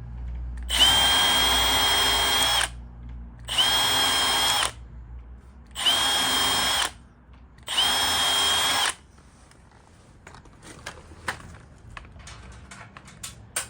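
Power drill run in four short bursts, each a steady whine at constant pitch, as the 100mm butt hinge is fixed into its routed mortise in the door. Light clicks and knocks follow in the last few seconds.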